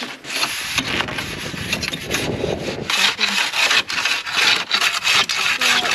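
Old pruning saw on the end of a long wooden pole sawing back and forth through packed snow on a roof edge, in repeated scraping strokes, cutting the overhang loose so that chunks break off.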